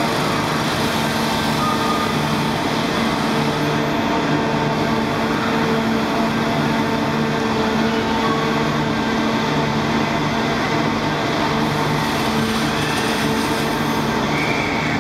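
The Great Elephant of Nantes, a walking machine driven by a diesel engine and hydraulics, running steadily as it moves: a constant mechanical drone with several steady hum tones.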